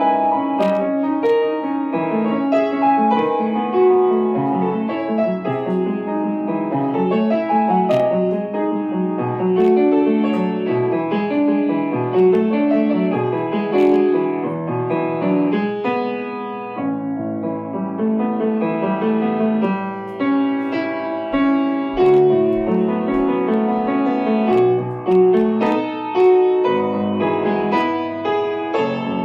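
Solo piano music: a steady flow of notes in the middle range, easing briefly about halfway through.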